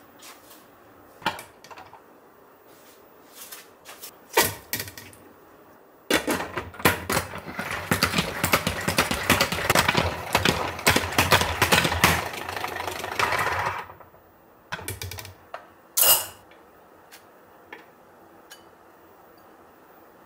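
Plastic push-pump salad spinner pressed down on its lid, its basket spinning with a fast clattering whir for about eight seconds while drying shredded cabbage. A few sharp clicks and knocks of the lid and bowl come before and after, the loudest about sixteen seconds in.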